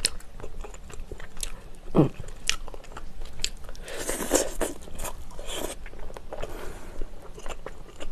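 Close-miked biting and chewing as meat is pulled off a pork bone from spicy pork bone soup, with sharp clicks throughout and a longer noisy stretch about four seconds in.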